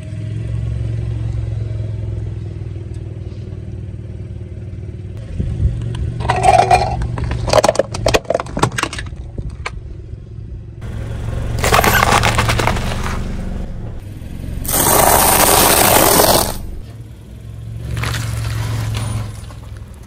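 A car's engine running with a steady low hum as its tyre rolls over objects on asphalt and crushes them, giving several separate bouts of crunching, crackling and scraping. The loudest crush comes about three-quarters of the way through.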